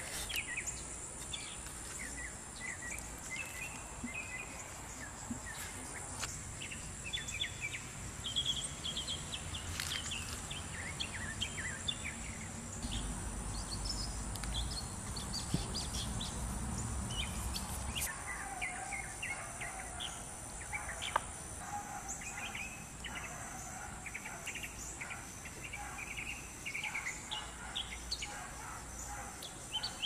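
Small songbirds chirping and twittering in short, scattered calls, over a steady high whine and outdoor background noise. A low rumble swells from about twelve seconds in to about eighteen, with a few light clicks and knocks here and there.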